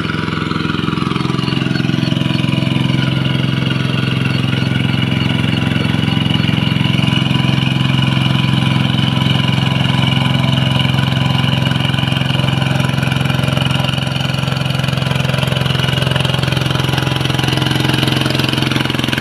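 Kubota single-cylinder diesel engine of a Quick two-wheel hand tractor running steadily under load while it plows a flooded rice paddy with cage wheels.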